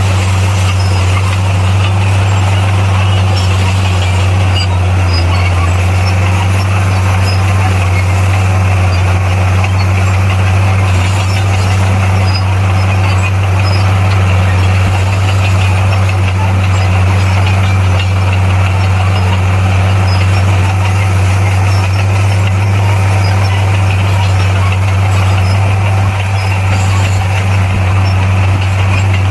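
Bulldozer's diesel engine running steadily at an even, unchanging low pitch.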